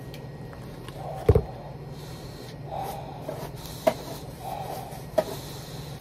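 A few short knocks and clicks from plastic food containers and chopsticks being handled at a table, the loudest about a second in, over a steady low hum.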